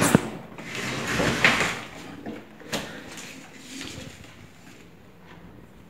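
Scraping and knocking as a household refrigerator is pulled and shifted away from the wall, with a noisy scrape lasting about a second and a half, then a single knock.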